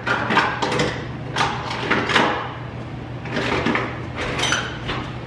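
Wooden kitchen drawer being opened and rummaged through, with a run of knocks and clatters of the cookware inside.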